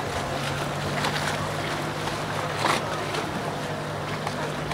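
Boat outboard engine running steadily with a low hum, under a hiss of water and wind. There are a couple of brief louder rushes of noise, about a second in and again past halfway.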